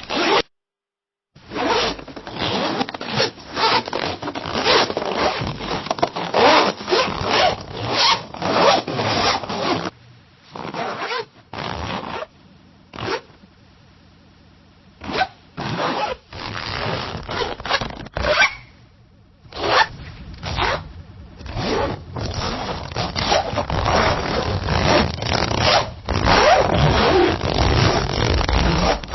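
Zipper zipped up and down over and over in many short strokes, with a brief gap just after the start and a sparser, quieter stretch near the middle.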